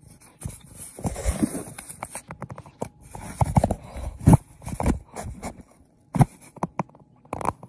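Close-up rustling, scraping and bumping of cardboard as a cat pushes its face into a round hole in it. The sounds come in irregular bursts and are loudest in the middle.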